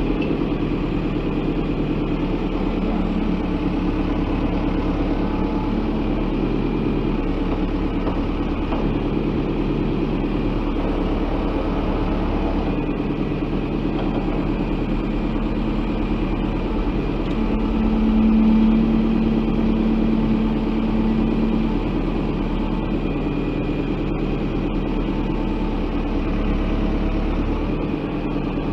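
JCB 3DX backhoe loader's diesel engine running steadily while working, getting louder for a few seconds past the middle before settling back.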